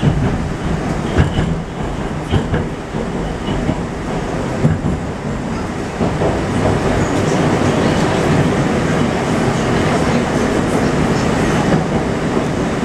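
Moscow metro 81-765.2 train running, heard from inside the car: the wheels click over rail joints roughly once a second. From about six seconds in, the running noise becomes steadier and slightly louder.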